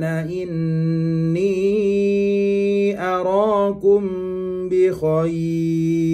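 A man reciting the Quran slowly in a melodic tajwid style, drawing out long held notes with brief breaks between phrases.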